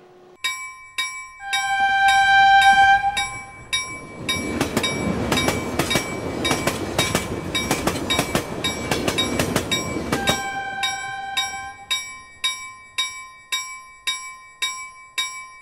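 Railway level-crossing bell ringing about twice a second. A train horn sounds twice, and in between a train passes with rushing noise and rapid clattering wheels.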